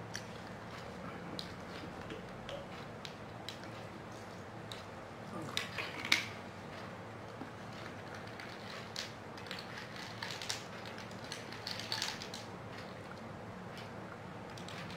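Spoons tapping and scraping against plates and bowls while eating: scattered small clicks over a steady low room hum, the sharpest click about six seconds in and a cluster of them around ten to twelve seconds.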